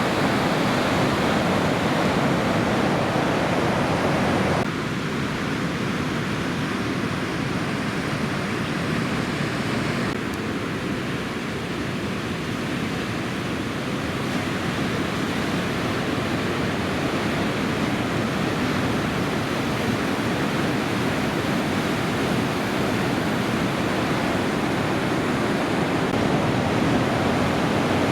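Surf breaking on a reef in a typhoon swell: a steady rushing wash of wave noise. Its tone changes abruptly about five seconds in and again about ten seconds in.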